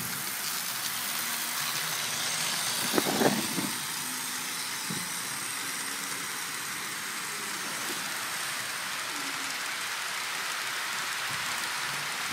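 HO-scale model freight train running past on its track: a steady rolling hiss of the wheels on the rails, with a short louder clatter about three seconds in.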